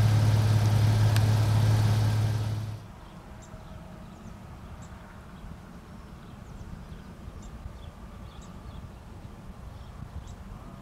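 A loud, steady low hum stops abruptly about three seconds in. It gives way to quiet outdoor background with scattered short, high bird chirps.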